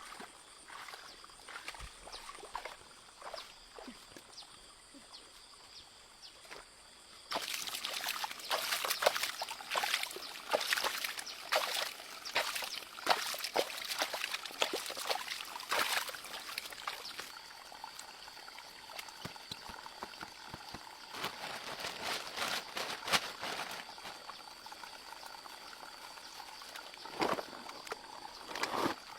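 Shallow stream water trickling and splashing, with many sharp splashes, louder and denser from about seven seconds in. A thin steady high whine joins from a little past halfway.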